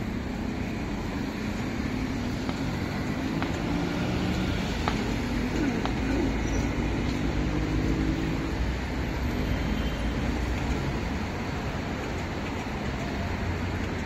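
Street traffic with a motor vehicle's engine running close by, growing louder toward the middle and easing off near the end.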